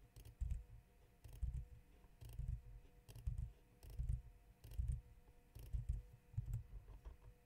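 Faint computer keyboard and mouse clicks, roughly one a second and often in close pairs, over a faint steady hum.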